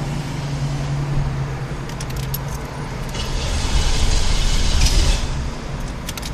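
A car engine being cranked that will not catch and run: the owner says it is flooded. Sharp clicks and key jingles sound at times, and a louder rushing stretch comes in the middle.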